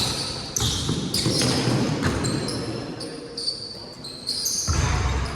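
Basketball game play on a gym court: a ball bouncing and sneakers squeaking in short high chirps, with a heavier low thump near the end.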